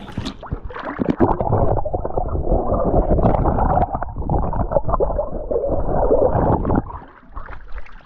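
Muffled churning and bubbling of swimming-pool water heard with the microphone under water: a dense low rumble with all the treble cut away. It stops abruptly about seven seconds in as the microphone comes out of the water.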